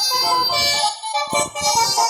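Music with a steady beat of about two low thumps a second under layered, shifting melodic tones.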